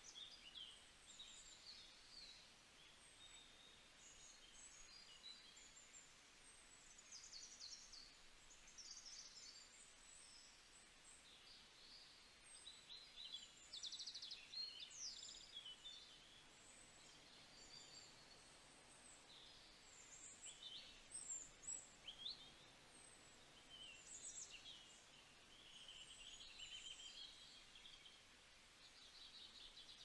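Faint chirps and calls of several small songbirds: many short, high notes and quick trills scattered throughout, a little busier around the middle and again in the second half.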